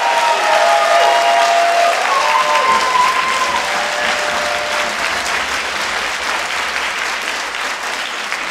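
Audience applauding, many hands clapping at once, easing off slightly toward the end.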